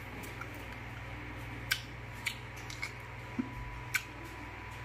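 A person eating with their fingers: a handful of short, sharp clicks and smacks spaced out irregularly, over a steady low hum.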